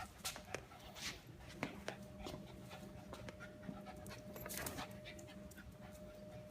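Puppy panting softly, in short breathy strokes.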